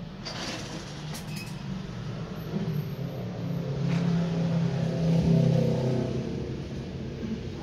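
Mattress tape-edge sewing machine (corner machine) running as it stitches the binding tape along the spring-bed mattress edge. Its motor hum builds to a peak about five seconds in, then eases off.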